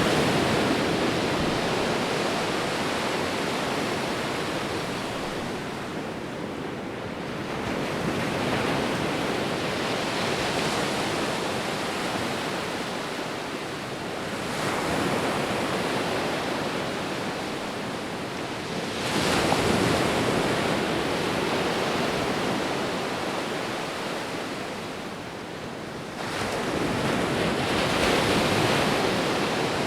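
Sea waves breaking and washing on the shore, a continuous rush of surf that swells and eases every few seconds.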